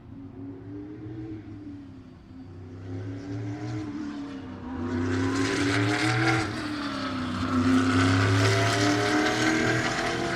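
NASCAR stock car's V8 engine running, its pitch rising and falling as it revs, and growing much louder from about halfway through as it comes closer.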